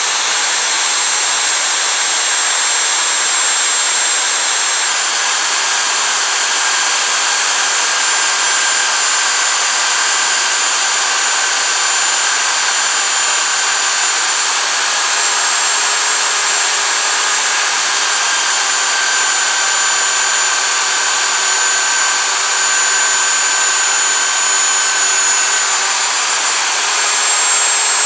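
Electric power tool running continuously with a steady high motor whine, its pitch shifting slightly a few times as the load changes.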